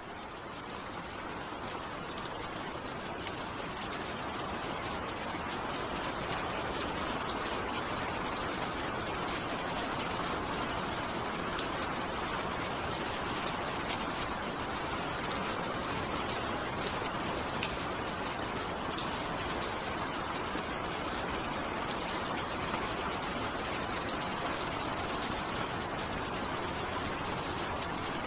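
Steady rain falling: an even hiss with scattered drop ticks, swelling in over the first few seconds and then holding level.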